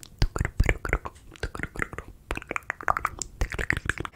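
ASMR mouth sounds close to the microphone: an irregular run of wet clicks and smacks from the tongue and lips, several a second.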